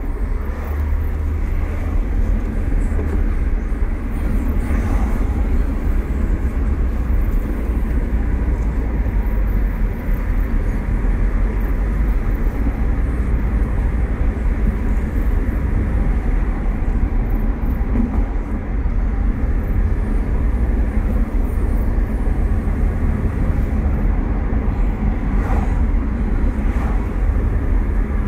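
Steady low rumble of a Nissan X-Trail being driven, heard from inside the cabin: tyre noise on the road and the engine running at cruising speed, with no sudden changes.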